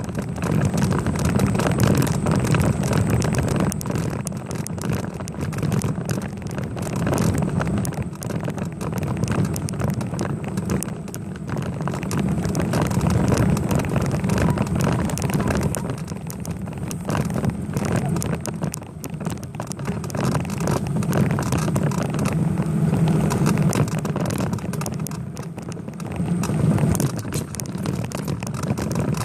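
Wind and road noise picked up by a bicycle-mounted camera while riding, a steady rushing rumble that swells and eases, with many small rattles and clicks throughout.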